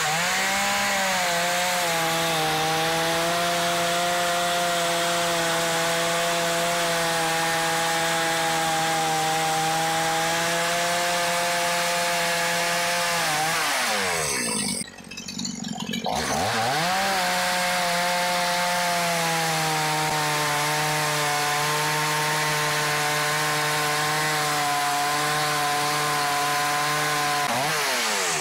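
Two-stroke NAC chainsaw revving up and running at a steady high speed while cutting through logs. About halfway it drops away for a second or two, then revs up and runs steady again before falling off near the end.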